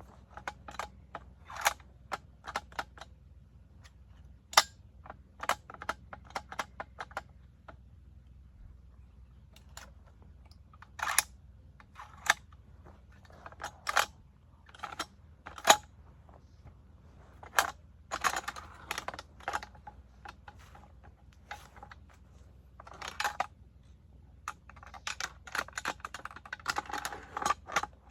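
Sharp metallic clicks and clatter of PKM machine gun parts being handled and fitted together, some single clicks and some quick rattling runs, with a brief pause about a third of the way through.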